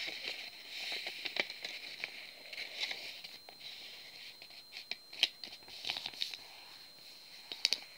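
A strip of squared notebook paper being folded and creased by hand: scattered rustles and crisp crackles of the paper, with a faint steady high-pitched whine behind them.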